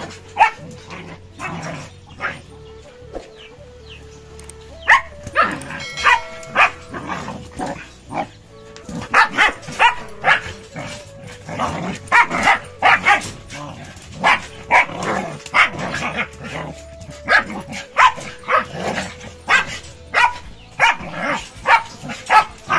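An adult German Shepherd and a German Shepherd puppy barking in rough play-fighting. There are a few barks at first, then from about five seconds in a fast run of barks, several a second. Quiet background music plays underneath.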